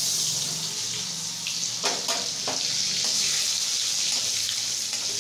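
Paneer cubes dropped into hot oil in a steel kadai, sizzling loudly the instant they go in and frying on steadily. A few clinks about two seconds in.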